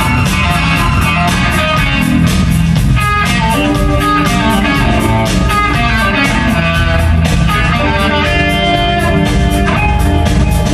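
Live power-trio music: electric guitar playing shifting lines of notes over electric bass and a drum kit with busy, evenly spaced cymbal and drum strokes.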